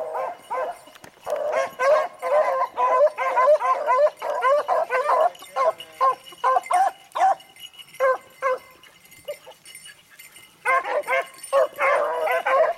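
A pack of beagles baying as they run a rabbit's track, many voices overlapping. The calls thin out past the middle and pause for a couple of seconds, then the pack picks up again near the end.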